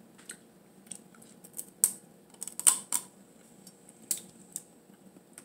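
Boiled blue crab shell being cracked and picked apart by hand: a run of irregular sharp clicks and crackles, loudest between about two and three seconds in.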